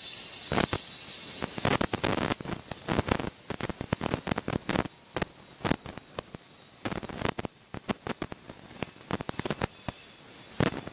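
Freight cars rolling past close by: a rapid, irregular run of sharp clacks and clanks from the wheels and cars on the rails, over a steady high hiss.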